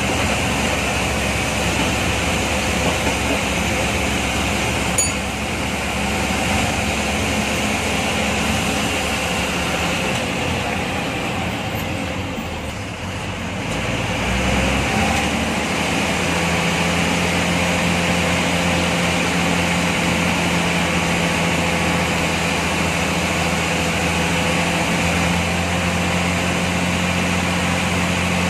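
MSRTC bus diesel engine running steadily under load, heard from inside the driver's cabin. About halfway through the engine sound dips briefly, then comes back at a different steady pitch.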